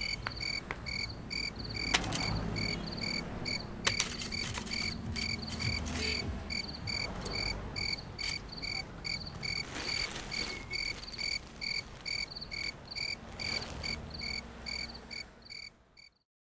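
A cricket chirping steadily, about three short, high chirps a second, with a few sharp clicks about two and four seconds in. The sound fades out just before the end.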